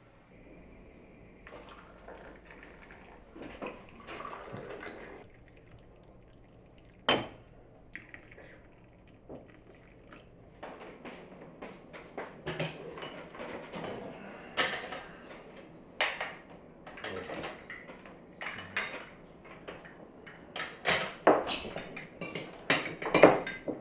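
Small glass tea glasses, saucers and teaspoons clinking on a table as tea is served: a string of sharp clinks, denser and louder toward the end.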